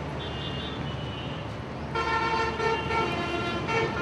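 A steady low hum, then about halfway in a loud held horn-like tone with several overtones, lasting about two seconds.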